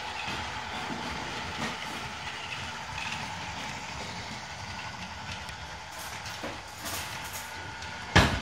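Battery-powered Lego Duplo toy train running along its plastic track: a steady motor whine with occasional clicks and rattles from the wheels and wagons. One sharp, loud knock near the end.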